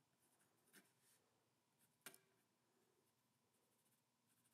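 Near silence, with the faint scratching of a pencil writing on a cedar post and two small ticks of the pencil point, about one second and two seconds in.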